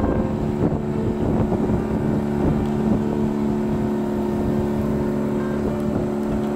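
Motor of a wooden river longboat running steadily under way, its pitch holding even.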